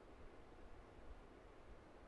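Near silence: faint, steady outdoor background hiss with a low rumble.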